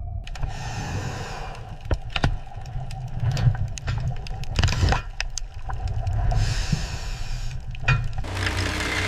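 Industrial work noise: a steady low rumble of machinery with several sharp knocks, and stretches of hiss that come and go.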